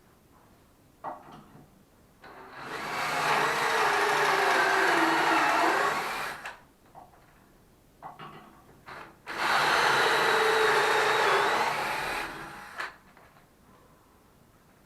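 An electric motor-driven tool running in two bursts of about four seconds each, its pitch sagging briefly under load in the first, with a few short knocks of handling between and before the runs.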